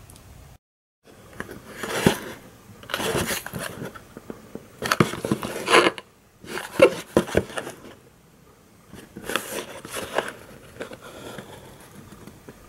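Small cardboard toy-car box handled close to the microphone: scraping and crinkling of card under the fingers in several short bursts, with clicks as its end flap is worked open.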